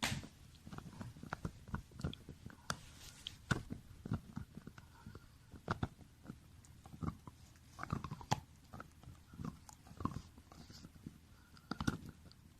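French bulldog chewing and gnawing a Marrowbone dental chew toy: irregular crunches and clicks of teeth on the toy, several a second.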